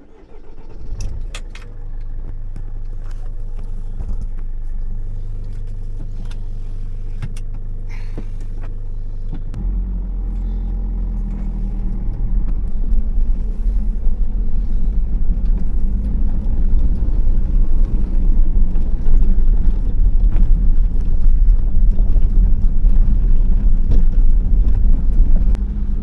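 Van engine starting and settling into a steady idle. About ten seconds in the van pulls away, and a louder, rougher rumble of engine and tyres on the rough track takes over.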